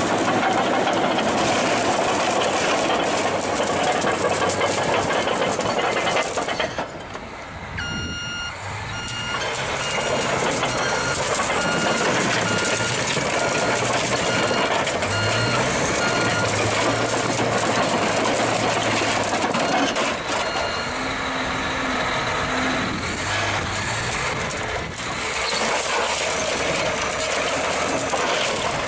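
Heavy construction machinery running, with a reversing alarm beeping on and off at an even pace for several seconds in the middle.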